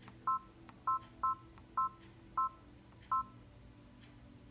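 Key beeps from a Brother Dream Machine embroidery machine's touchscreen as its resize buttons are tapped: six short two-tone beeps at uneven intervals, over a faint steady hum.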